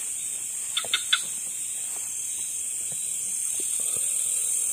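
Night insect chorus, a steady high-pitched buzzing of crickets. About a second in, three quick short chirps from a small animal cut through it.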